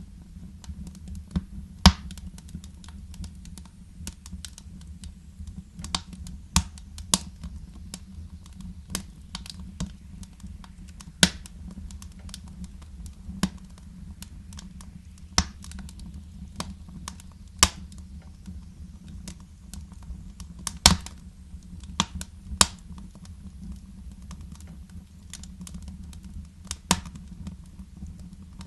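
Wood fire crackling in a fireplace: irregular sharp pops and snaps, a few much louder than the rest, over a low steady rumble.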